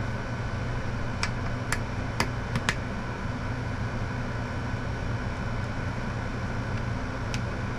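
Plastic corner trim caps snapping into an LED ceiling light's frame: a few sharp clicks, five in the first three seconds and one more near the end, over a steady low hum.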